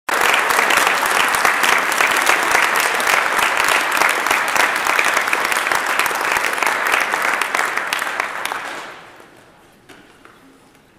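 Audience applause, dying away about nine seconds in.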